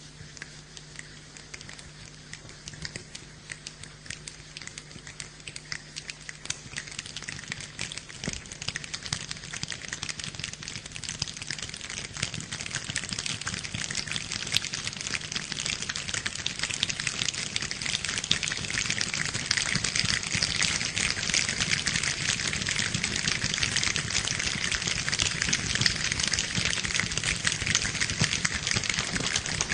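Rain falling, a dense patter of drops that builds steadily heavier and louder.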